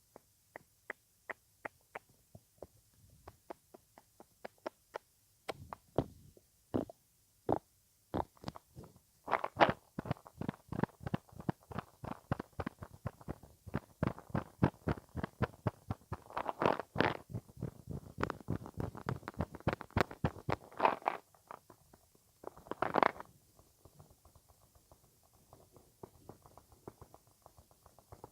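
ASMR mouth sounds close to the microphone: a long run of small wet clicks and pops, sparse at first and then coming thick and fast from about nine seconds in, with faint clicks near the end.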